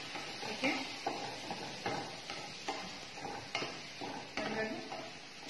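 Wooden spoon stirring a frying pan of simmering butter sauce with cherry tomatoes, the spoon scraping and tapping against the pan about once a second over a steady sizzle.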